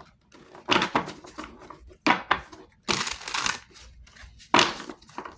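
Tarot cards being shuffled and handled in bursts, a rustling, slapping riffle heard about four times.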